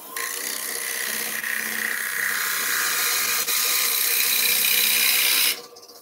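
Wood lathe running with a steady motor whine, while something held against the spinning sycamore plate makes a continuous hiss for about five and a half seconds that stops abruptly.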